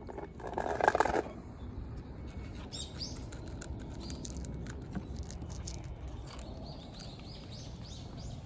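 Cats crunching dry kibble from a bowl: a close, loud run of crunches in the first second, then softer, scattered crunches and clicks.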